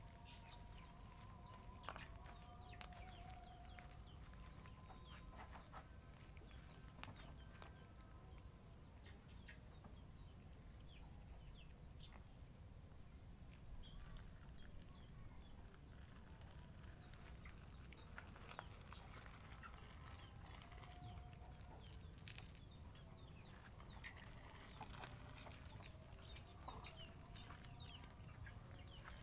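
Quiet sound of cats crunching dry kibble, small scattered clicks, with chickens clucking in the background in short held calls during the first several seconds and again in the second half.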